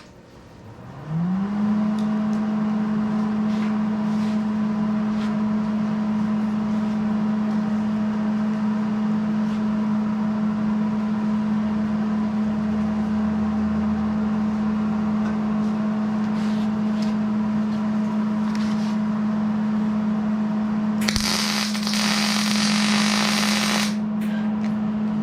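A machine hum comes up to speed about a second in and then holds steady. About 21 seconds in, a welding arc crackles for about three seconds, laying one tack weld on the stall railing.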